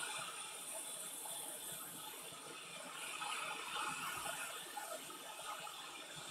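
Atten ST862D hot air rework station blowing a steady hiss of hot air from its nozzle onto a circuit board to melt the solder under a small capacitor.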